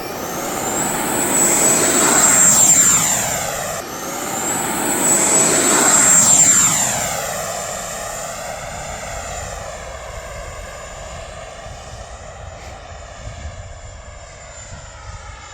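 FMS F-86 Sabre RC jet's 80 mm electric ducted fan spooling up to a high-pitched whine and rushing past on takeoff. It is loudest about two and a half seconds in and again around six seconds, with the whine rising in pitch near the start and again about four seconds in. It then fades steadily as the jet climbs away.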